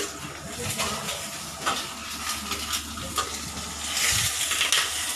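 Egg frying in hot oil in a pan, a steady sizzle that grows louder about four seconds in, with a few sharp clicks of a utensil or the pan being handled.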